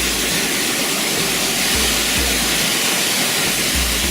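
Waterfall rushing steadily, a dense, loud hiss of falling water, with low rumbles coming and going every second or two.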